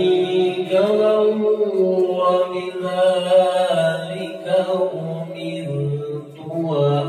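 A man reciting the Quran in the melodic, drawn-out qori style into a microphone, holding long ornamented notes. The phrase falls away about six seconds in and a new one begins just after.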